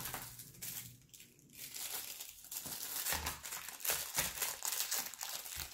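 Packaging crinkling and rustling in irregular crackles as it is handled and opened, with brief pauses and a few soft low thumps.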